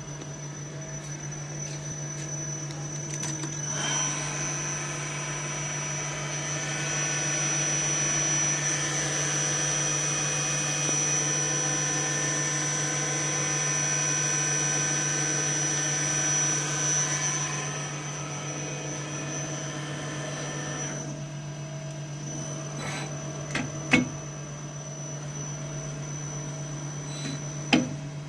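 1988 Star RNC-10 CNC automatic lathe running: a steady low hum with a high, even whine that comes in about four seconds in and falls away about two-thirds of the way through. Two sharp clicks near the end.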